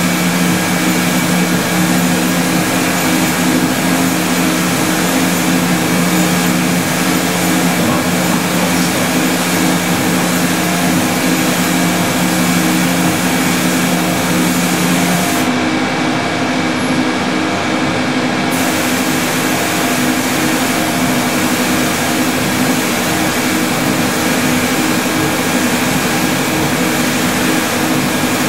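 Laser diamond-sawing machine running: a steady rushing noise over a low hum of several tones. The lowest hum drops out a little past halfway.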